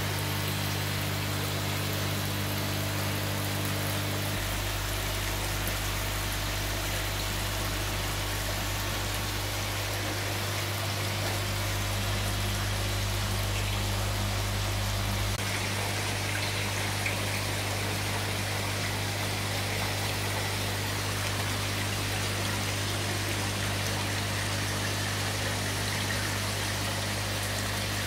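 Steady hum of aquarium air pumps and filters, with water bubbling and trickling from the aeration; the hum changes slightly a couple of times.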